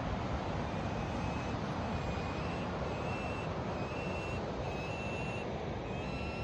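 Steady wind and ocean surf noise. A faint, thin, high note repeats about once a second from about a second in.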